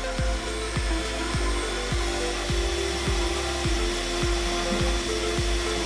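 Electronic background music with a steady kick-drum beat, over a small desktop CNC router's spindle milling a wooden block.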